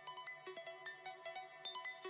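Background electronic music: a quick run of short, bright, ringing notes, about five a second.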